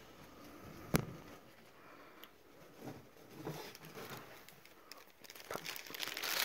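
Faint crinkling and rustling of close handling, with one sharp knock about a second in and scattered light clicks.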